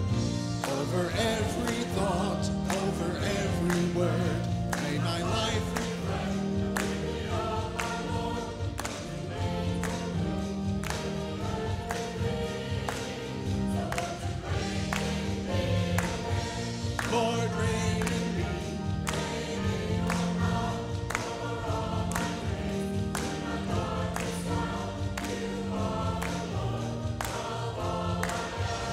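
Choir singing a worship song over instrumental accompaniment with a steady beat.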